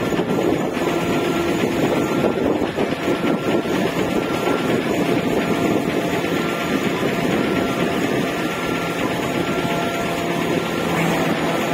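Poseidon 30 ro-ro ferry's engines running steadily under manoeuvring power while docking, a dense steady rumble and hiss; a low steady hum comes in near the end.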